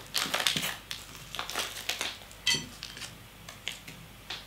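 Packets and dishes being handled on a tabletop: plastic wrappers rustling and crinkling, light knocks, and one short ringing clink about two and a half seconds in.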